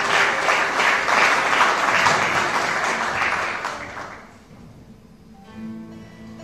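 Audience applauding, dying away about four seconds in. Soft instrumental music with a few held notes comes in near the end.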